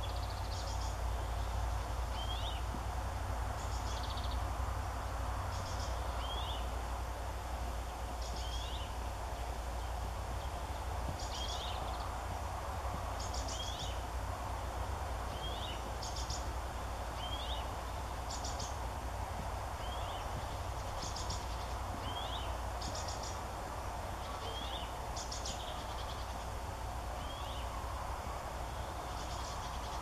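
Small birds calling repeatedly, short high rattling notes alternating with brief hooked chirps, each coming about every two seconds, over a steady low background rumble.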